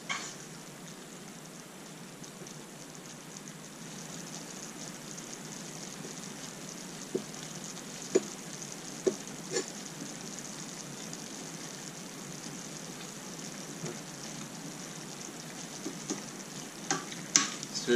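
Pasta in a thin curry gravy simmering in a stainless steel pan, a steady soft bubbling hiss. A few light clicks of a utensil come about halfway through and again near the end.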